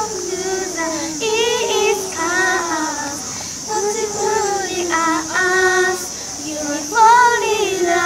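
A group of children singing a song together, held notes rising and falling in a simple melody.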